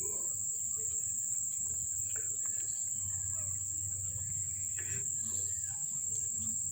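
Steady high-pitched insect chirring, most likely crickets, holding one even tone throughout, over a low hum.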